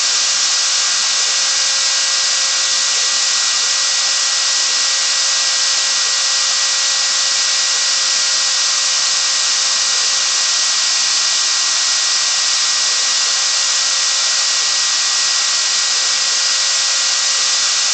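Homemade CNC router's spindle running steadily, a high whine with a hiss as its bit mills trace outlines into a copper-clad circuit board.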